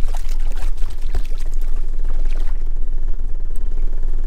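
Water splashing and sloshing as a small cod held in a lip grip is dipped and kicks in the sea beside a small boat, most busily in the first couple of seconds. A steady low rumble runs underneath.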